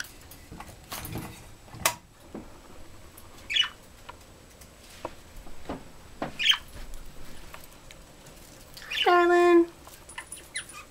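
Budgerigars giving a couple of short chirps amid scattered clicks and taps of beaks and feet on the cage, perches and bead toys. Near the end comes a loud, held pitched sound lasting about half a second.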